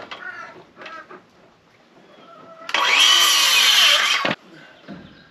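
Handheld circular saw spinning up and cutting through a wooden board for about a second and a half, then cutting off sharply. Chickens cluck in the background before the cut.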